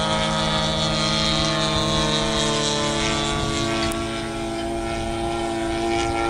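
Engine of a radio-controlled model P-47 Thunderbolt running steadily in flight, a sustained propeller note with many overtones whose pitch drifts slightly as the plane flies by.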